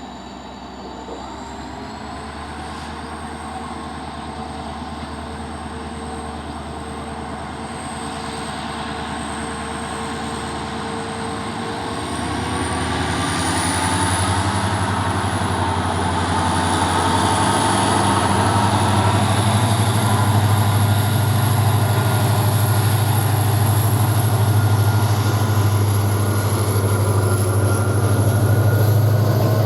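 EMD WDP-4D diesel locomotive's two-stroke 16-cylinder engine running under load, its deep hum growing steadily louder and heavier from about twelve seconds in, with a thin high whine rising slowly in pitch.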